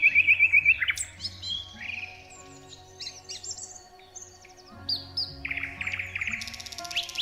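Songbirds chirping and trilling: a fast trill of repeated notes opens, varied chirps follow, and a buzzy rapid trill comes near the end. A soft, steady music bed sits beneath the birdsong.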